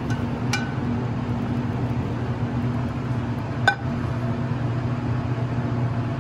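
Steady low mechanical hum of kitchen equipment. Over it come two sharp clinks of metal on a ceramic plate as pasta is served from a sauté pan with tongs; the louder clink is about three and a half seconds in.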